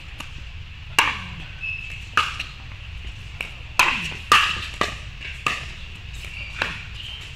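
Pickleball paddles striking a hard plastic pickleball during a rally: a string of sharp, hollow pops that come closer together in the middle, each with a short ring.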